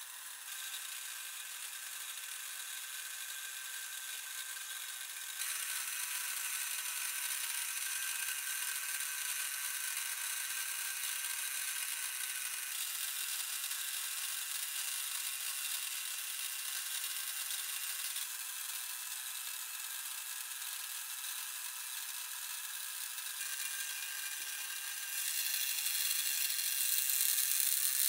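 Gear train of a wind-up wooden automaton running steadily, a high mechanical running sound of many small gears turning the rotating cubes, growing louder in steps and loudest in the last few seconds.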